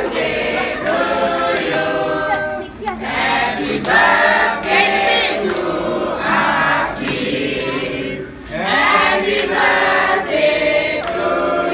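A group of people singing a birthday song together, in sustained lines with short breaks between them.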